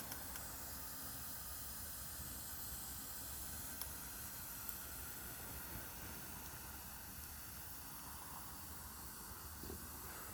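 Campfire burning with a steady hiss and a few faint crackles.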